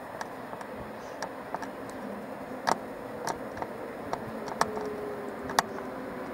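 Irregular sharp clicks and clucks from a stiff, rusted tripod head as the camera pans, over steady background hiss; the loudest clicks come a little before the middle and about five and a half seconds in.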